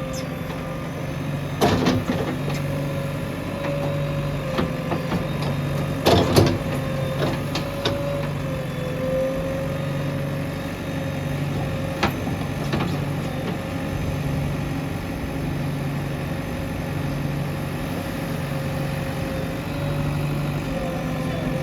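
JCB 3DX backhoe loader's diesel engine running steadily, its low note swelling and easing about once a second, with a steady whine over it. A few sharp metallic knocks stand out, about two, six and twelve seconds in.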